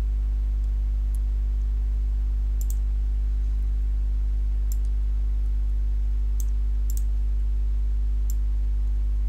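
Scattered computer mouse clicks, some single and some in quick pairs, over a steady low electrical hum.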